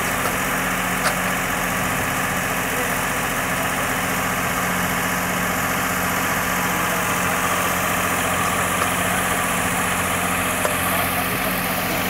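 ACE 550 NG tractor's diesel engine running steadily as it powers the rear backhoe digging and lifting soil, with a couple of brief clicks.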